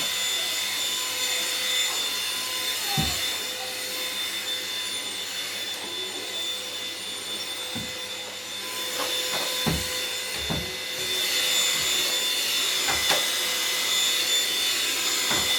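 Steady whirring motor noise with a rushing-air hiss and a faint whine, broken by about six dull low thumps.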